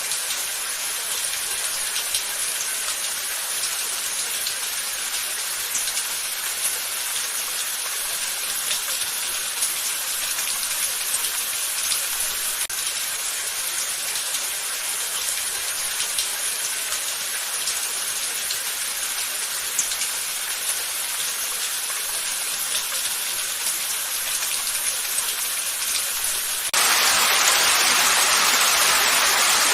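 Steady rain falling, an even hiss with many scattered drops ticking. About 27 s in, it cuts abruptly to a louder, heavier downpour.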